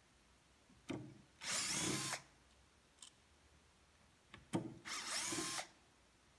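Cordless drill-driver spinning out screws in two short runs of under a second each, each run after a sharp knock.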